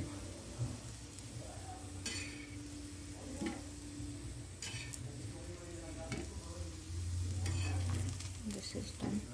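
Oats cookies sizzling in ghee on a hot tawa, with a few short scrapes of a spatula against the pan as they are turned, about two, four and a half and seven and a half seconds in. A steady low hum runs underneath.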